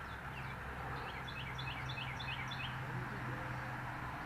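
A small bird chirping a quick run of short, falling notes, about four a second, over a steady low hum.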